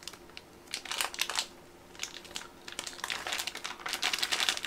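Clear plastic bag of pork trotters crinkling as it is handled, in short bursts about a second in and then more continuously from about three seconds in.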